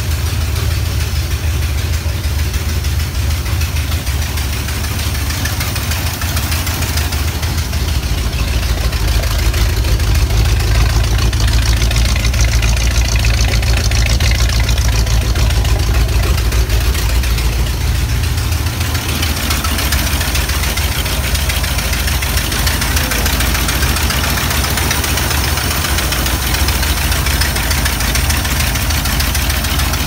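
International MV446 gasoline V8 in a 1978 Loadstar 1700 truck idling, running after its ignition points and distributor cap were cleaned. Its low rumble grows louder for about ten seconds in the middle.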